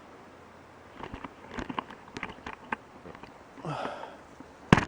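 Person shifting on a wooden spine roller: a scatter of light clicks and rustles, a breathy exhale, then one sharp click near the end.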